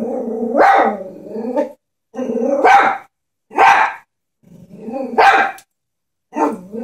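Chihuahua growling and barking at a stuffed toy horse in about five short bouts, each a growl that breaks into a sharp, high bark. It is wary, fearful barking at an object the dog is scared of.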